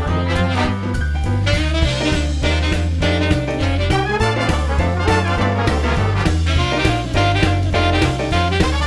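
Background music: an upbeat swing-jazz track with brass and a walking bass line.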